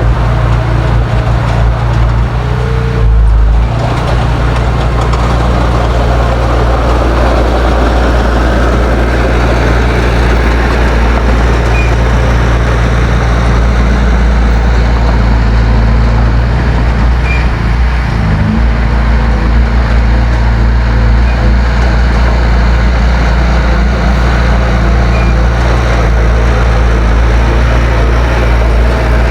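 Heavy diesel earth-moving machinery running steadily at close range, its engine note holding with a brief louder surge about 3 seconds in and a short change in pitch about 18 seconds in.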